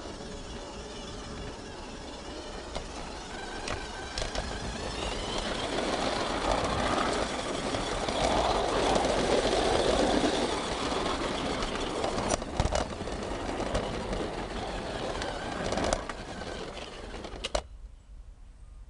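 Garden-railway model train running along outdoor track, heard from on board: a steady whir of motor and wheels on the rails that grows louder through the middle, with a few sharp clicks later on. It drops away suddenly near the end as the train stops.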